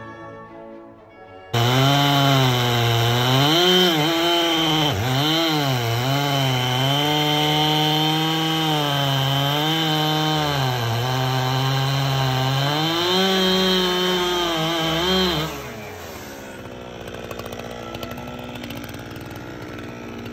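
Chainsaw cutting into a large maple trunk. It starts abruptly about a second and a half in, and its pitch dips and recovers again and again as the chain loads up in the cut. It falls away to a much quieter sound about fifteen seconds in.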